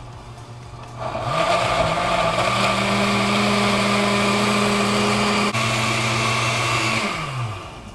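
Countertop blender grinding boiled tomatoes, green chiles, onion and garlic into salsa. The motor picks up speed about a second in, runs steadily with a brief dip past the middle, then winds down near the end.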